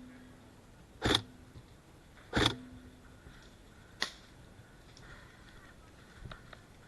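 An airsoft gun firing close by, three single shots about a second apart, each a sharp crack, the first two with a short mechanical whir after; a few faint clicks follow near the end.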